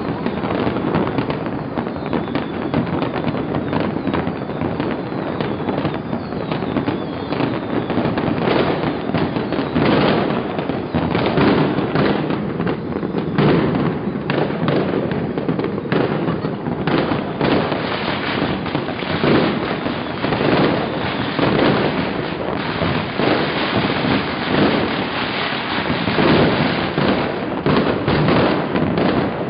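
Dense, continuous barrage of fireworks and firecrackers: many overlapping bangs and crackling with no let-up.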